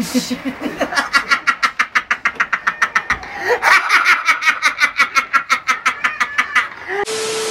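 A man laughing hysterically in a fast, unbroken run of laughs, about six a second. Near the end the laughter cuts off and a steady tone over hiss takes over.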